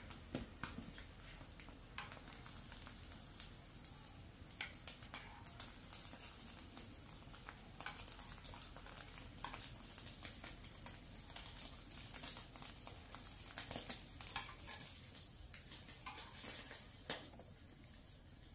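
Faint, irregular light taps and clicks over a low background hum.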